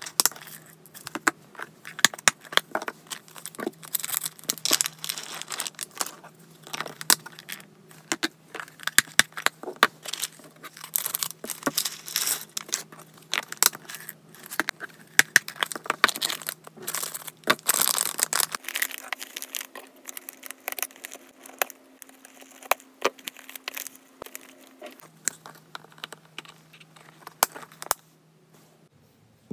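Packaging crinkling and rustling, with many small clicks and knocks, as shopping parcels are unpacked and the items handled.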